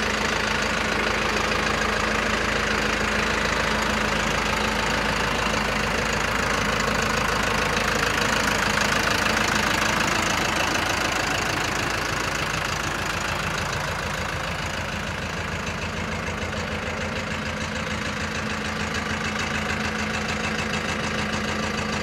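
Mahindra 8560 Turbo tractor's turbodiesel engine idling steadily.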